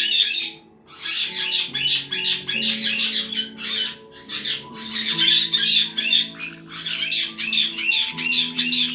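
Caique parrots calling in rapid, repeated high-pitched chirps and squawks, with a short break just under a second in, over background music of held notes.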